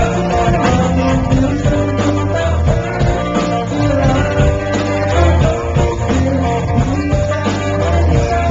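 A rock band playing live, with electric guitar, bass and drums and a sung vocal, recorded loud through a small camcorder microphone.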